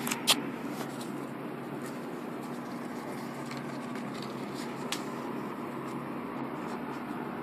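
Eskimo 12-inch box fan running steadily: an even rush of air over a low motor hum. A sharp click comes a moment after the start.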